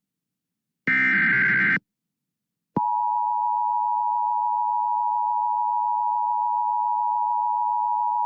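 Emergency Alert System tones: the final burst of the SAME digital header, about a second of harsh warbling data screech, then about a second of silence, and then the steady two-tone EAS attention signal (853 and 960 Hz together) starting nearly three seconds in and holding.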